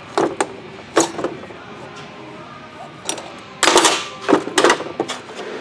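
Small metal engine parts from a Yamaha YZ250 cylinder clinking as the power-valve rod and its pieces are pulled out and set down. There are two pairs of sharp clinks in the first second and a quick run of them a little past the middle.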